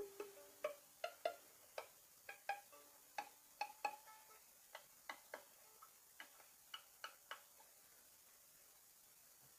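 Violin strings plucked with the fingers: a run of short single pizzicato notes at changing pitches, about two or three a second, that thins out and stops about seven seconds in.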